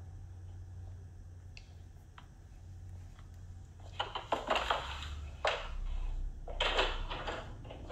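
A low steady hum, then about halfway in two clusters of clattering knocks and rustles, the second near the end.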